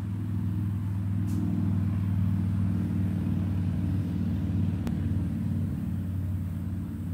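Steady low mechanical hum from a running machine, with a sharp click about five seconds in.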